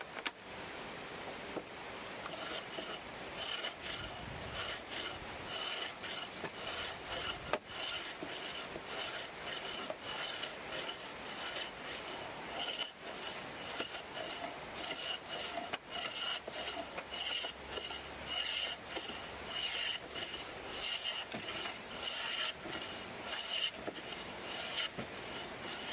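Old-style hand plane shaving wood: stroke after stroke of the blade scraping along the board, each with a faint ringing note.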